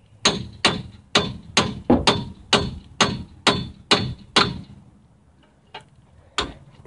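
Steel hammer striking metal on a Jeep Cherokee Dana 30 front wheel hub assembly to knock it loose: about ten ringing blows at roughly two a second, a pause, then one more blow near the end.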